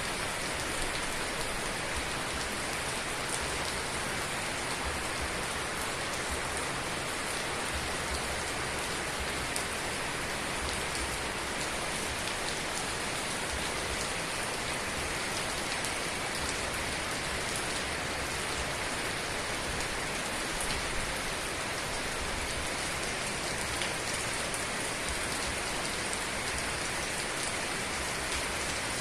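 Heavy rain falling steadily, a dense even hiss with scattered drop ticks.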